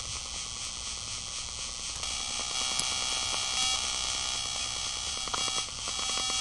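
Interference from a Fluke digital multimeter's display, picked up by a Carlson Super Probe and played through an EICO 147A signal tracer's speaker: a steady buzzy static. Near the end a fast, regular pulsing comes in as the meter is switched.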